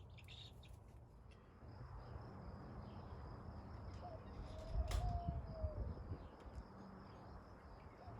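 Dove in an aviary giving a soft, drawn-out coo about four seconds in and starting another near the end, over a steady high insect-like trill and low rumble.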